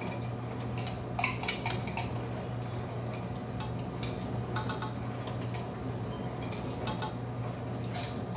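A spoon scraping and tapping inside a metal can and against a frying pan as condensed cream of mushroom soup is scooped out: scattered light clinks in small clusters, over a steady low hum.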